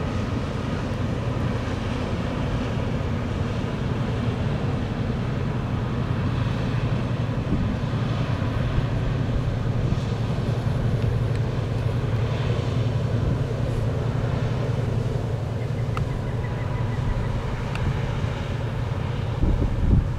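Steady low rumble of a passing inland motor tanker's engine, with the hiss of its bow wave. Near the end, wind buffets the microphone.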